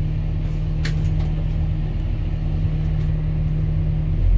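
Excavator's diesel engine and hydraulics running steadily with a constant low hum; near the end the hum stops and a deeper, louder rumble takes over.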